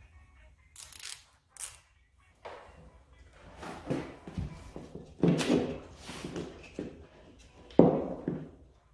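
Telephone hold music playing through a phone's speaker, with two short hissing rustles about a second in and a sudden loud knock near the end.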